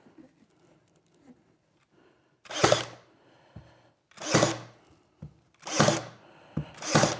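Cordless pin nailer firing four times, about a second and a half apart, each shot a short sharp bang as it drives pins through a hardboard top into a plywood base. Light handling noise comes before the first shot.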